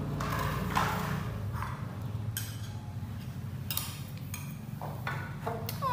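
Metal spoon clinking and scraping against a ceramic bowl of food in scattered short clicks, over a steady low hum.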